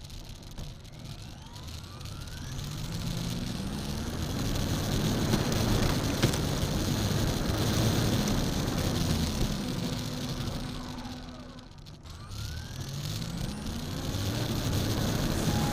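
High-speed radio-controlled car's motor whining up in pitch as it accelerates, with wind and tyre rush building to a peak, then winding down about twelve seconds in before rising again on a second acceleration.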